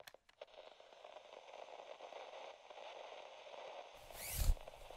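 Intro-animation sound effects: a faint crackle like static with scattered light clicks, then a short whoosh that ends in a low thump about four seconds in.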